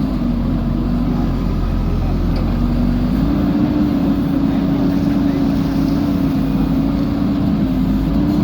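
JCB 3DX backhoe loader's diesel engine running steadily under work, its speed dipping slightly at first and rising again about three seconds in.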